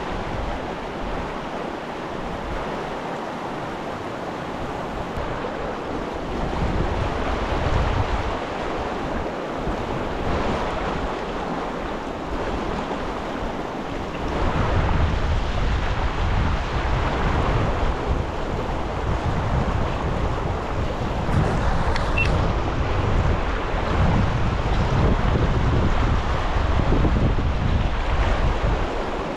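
Fast-flowing river running high, a steady rushing hiss of water, with wind buffeting the microphone in gusts that grow heavier from about halfway.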